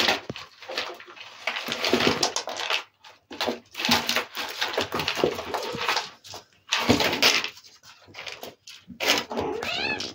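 Savannah kittens wrestling and scuffling on a fleece cat bed, making rustling in irregular spells, with a short high-pitched kitten mew near the end.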